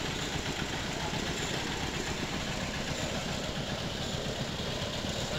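Piyaju (onion fritters) deep-frying in a large wok of hot oil, sizzling steadily, over a steady low rumble.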